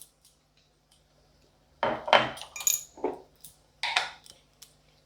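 A metal utensil scraping and clinking against a kadai, several quick strokes with a brief metallic ring, starting about two seconds in.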